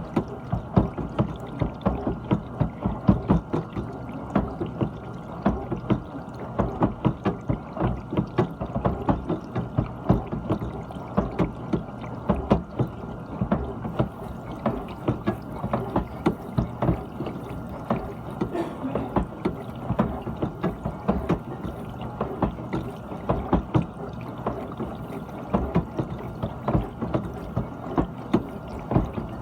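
GE dishwasher running its wash: water sprayed and sloshing inside the tub in an uneven, splashing rush, with a steady pump hum underneath.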